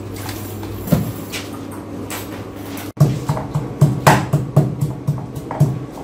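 Pestle pounding in a mortar, about three regular thumps a second, starting about halfway through, over background music.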